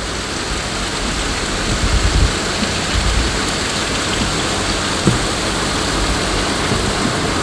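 Steady rushing noise of water, with a couple of low thumps about two and three seconds in.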